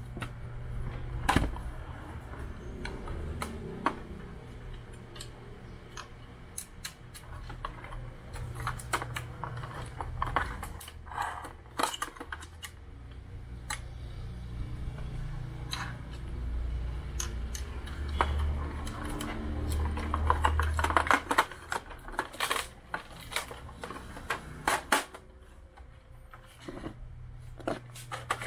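Irregular small clicks, taps and rattles of plastic and metal parts being handled as a replacement power supply board is fitted into an Epson L360 inkjet printer, over a steady low hum.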